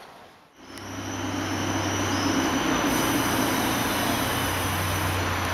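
Heavy vehicle running close by on a city street: a steady low hum with a thin high squeal over it, starting just under a second in.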